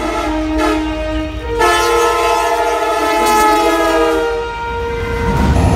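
A Norfolk Southern diesel locomotive sounds its multi-chime air horn, a chord of several steady tones that changes twice and ends about four and a half seconds in. The rumble of the passing locomotive and stack train rises near the end.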